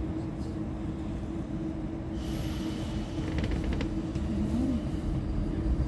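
81-726.1 "Baltiets" metro train heard from inside the car as it starts away from the platform. A steady hum runs under it, a hiss with a faint high tone comes in about two seconds in, then a few clicks as the rumble slowly builds.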